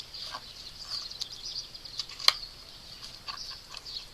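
Small handling clicks and rubbing as a rubber balloon is stretched over a hollow plastic highlighter tube, with one sharp snap about two seconds in, over steady high-pitched chirping in the background.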